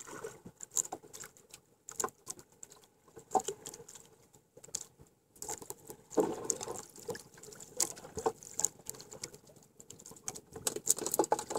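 Small waves lapping and slapping against the hull of a small outrigger canoe, heard as a run of irregular light slaps and knocks, with a fuller splash-like burst about six seconds in.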